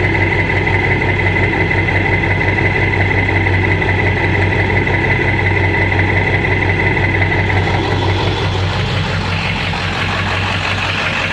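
Ford 7.3 L V8 diesel engine idling, with a steady high whine over the engine's hum; the whine fades about eight seconds in and a slightly higher one takes its place near the end. This is an engine with a knock, a rough idle and no power whose cause the owner cannot find.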